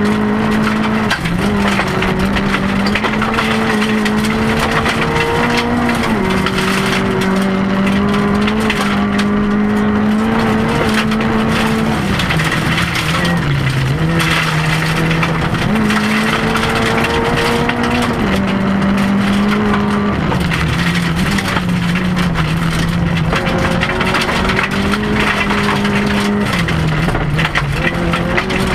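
Rally car engine heard from inside the cockpit, driven hard on a gravel special stage. The engine note holds high and steps up and down with gear changes and lifts, dropping lowest about halfway through. Gravel hisses and rattles under the car throughout.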